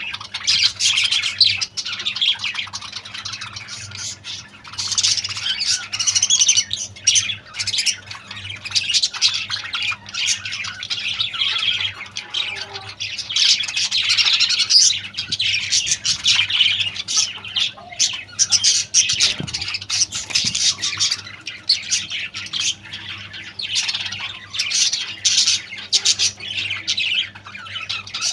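A colony of caged small parrots chattering and squawking together in a dense, continuous din of overlapping calls, with a faint steady hum underneath.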